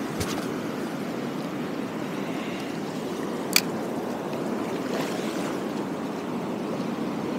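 Small sea waves washing in over the rocks at the shoreline, a steady rush of water, broken by a single sharp click about three and a half seconds in.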